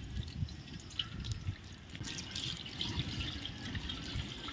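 Water dripping and trickling, with small irregular splashes.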